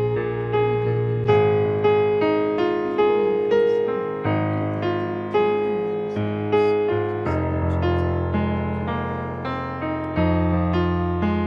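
Background piano music: a steady run of struck notes over held bass notes.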